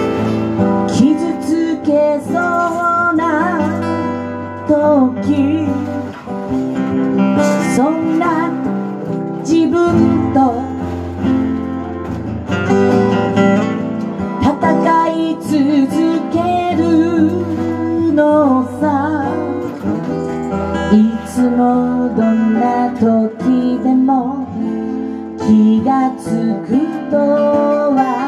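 A live song: an acoustic guitar strummed as accompaniment, with a woman singing into a microphone over it in long, wavering phrases.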